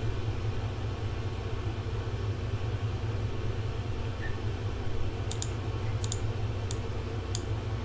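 Steady low electrical hum with a handful of sharp clicks at a computer, about six spread over the last three seconds.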